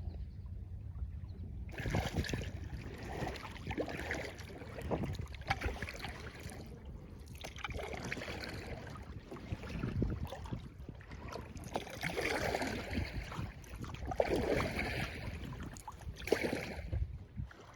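Kayak paddle dipping into lake water and splashing in repeated strokes about every two seconds, starting about two seconds in.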